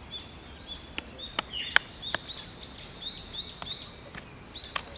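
Sharp knocks of a hand-carved wooden stake being driven into the ground, a handful of irregular strikes with the loudest just under two seconds in. Small birds chirp repeatedly throughout.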